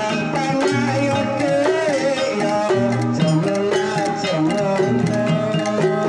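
Javanese gamelan ensemble playing: bronze kettle gongs (bonang) struck with padded mallets, wooden-framed keyed instruments and a hand drum keeping a steady rhythm, with a melody line that bends in pitch above them.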